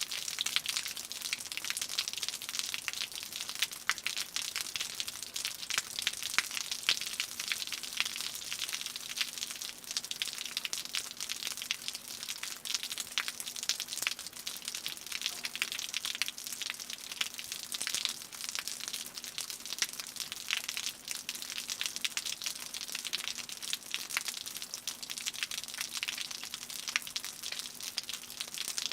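Raindrops falling from a roof in a dense, steady patter of many small ticks.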